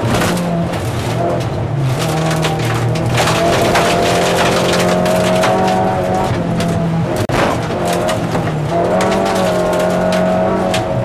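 Lada 2108 (VAZ-2108) rally car's engine running hard at speed, heard from inside the cabin on a gravel stage. Loose gravel and stones clatter against the car throughout, with a momentary break a little after halfway.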